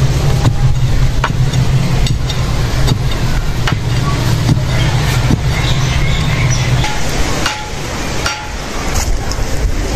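Short-handled hoe chopping into hard, dry soil, knocking about once a second, over a steady low hum that stops about seven seconds in.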